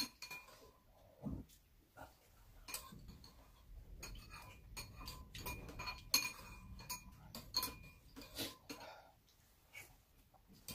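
Metal spoons and chopsticks clinking and scraping against ceramic bowls while eating: irregular light clinks, several with a brief ringing note.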